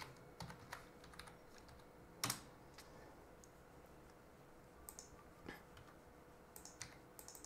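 Faint, sparse clicks of a computer keyboard and mouse, with one louder click a little over two seconds in.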